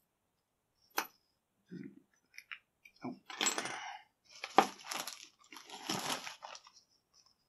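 A sharp metal click, then a ring of keys clinking onto a wooden tabletop and a plastic bag crinkling in several bursts as a hand rummages through it.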